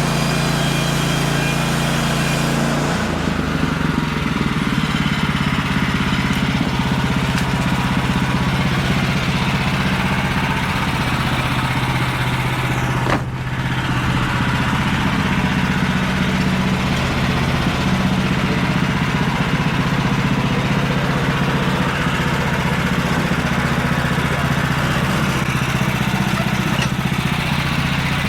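Portable bandsaw sawmill's gas engine running steadily under a cut. Its note shifts about three seconds in, and the level dips briefly near the middle.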